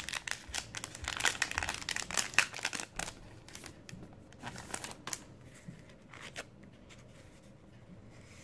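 Clear cellophane packaging crinkling and crackling as it is handled and opened. The crinkling is dense for the first three seconds, then a few scattered crackles, then it goes quieter.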